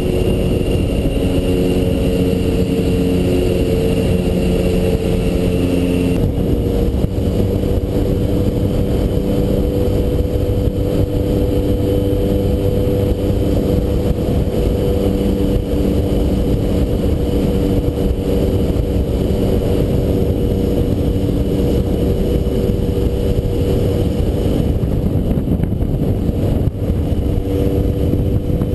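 Motorcycle engine running at a steady cruising speed under a heavy rush of wind and road noise on a helmet-mounted camera; the engine note shifts about six seconds in, then holds steady again.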